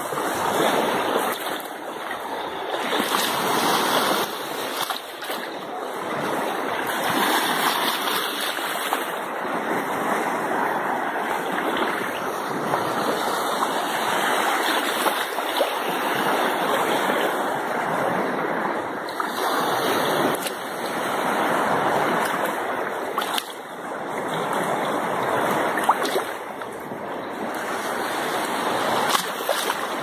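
Small sea waves washing and lapping in the shallows: a steady rush of surf that swells and eases every few seconds.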